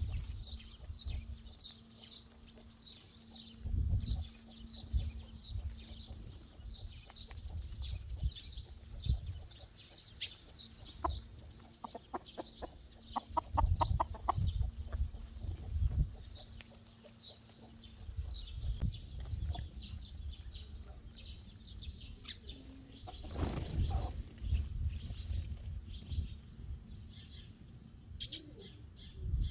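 Hens clucking as they forage, with a quick run of clucks about halfway through, over sparrows chirping steadily, about two chirps a second. A brief burst of rustling noise comes about two-thirds of the way through.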